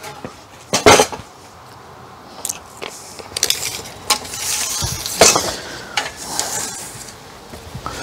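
Lumber boards knocking and scraping as they are handled and slid along a miter saw stand: a handful of sharp wooden knocks and clatters, the loudest about a second in and about five seconds in.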